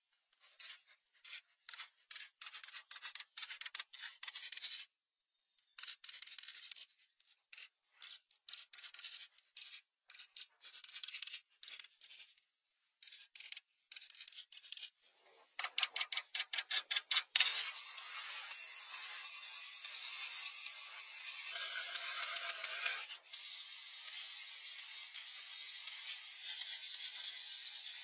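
Crayon rubbing and scratching on paper: short separate strokes at first, then a quick run of back-and-forth scribbles, and from about two-thirds of the way in a steady unbroken colouring stroke with one brief break.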